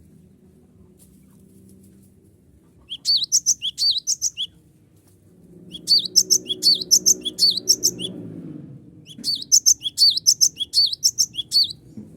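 Cinereous tit (gelatik batu) singing three bouts of its song, each a quick run of repeated high two-part whistled notes, about four or five a second, with short pauses between bouts. A faint low rumble sits underneath, louder in the middle bout.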